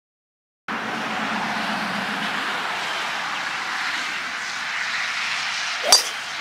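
A golf club striking the ball once, a sharp crack about six seconds in. Under it is a steady rushing background noise that starts about a second in.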